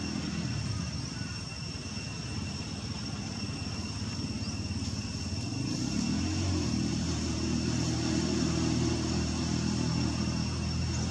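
Low engine hum of a motor vehicle running, growing louder about six seconds in. Two faint, steady high-pitched whines run above it.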